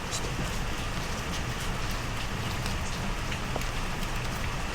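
Steady background noise with a low rumble, dotted with faint scattered clicks and ticks.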